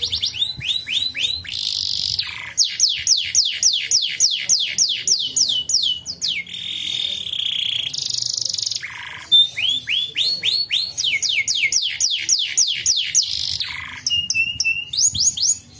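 Domestic canary singing: fast trills of repeated downward-sweeping notes, about four or five a second, changing phrase every few seconds, with a couple of short harsh, buzzy notes between the trills.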